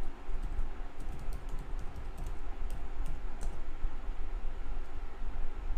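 Computer keyboard typing: a quick run of key clicks that thins out a little after halfway, over a steady low hum.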